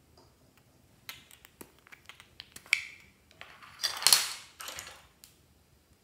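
Small plastic containers being handled and opened: a series of light plastic clicks and taps, then one longer, louder scrape about four seconds in.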